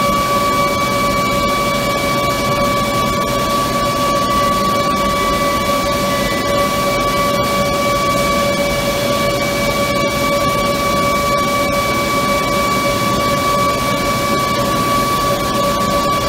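Steady industrial machinery noise of a corrugator plant floor: an even rushing noise with a constant whine at several pitches running unchanged.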